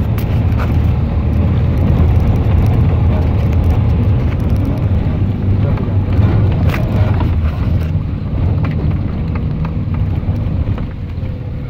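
Steady engine and road rumble heard from inside a moving vehicle, with a few brief knocks, the loudest about seven seconds in.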